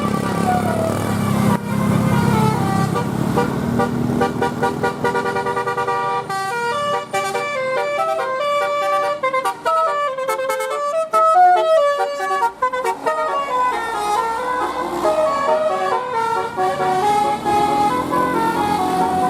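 Bus telolet horn, a multi-tone musical air horn, playing a melody of stepping notes over the bus's engine. From about six seconds in the notes sharpen and change rapidly.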